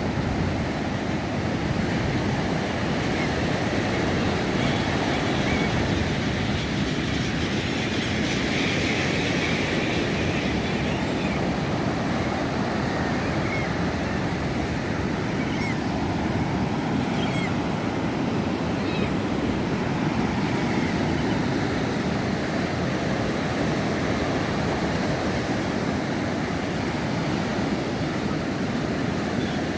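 Ocean surf washing steadily on a beach, with faint short calls from guano seabirds now and then.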